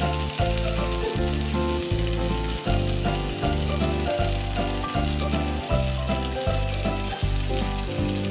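Pork and potato slices sizzling in a frying pan, a steady hiss of hot oil, over background music with a steady bass beat.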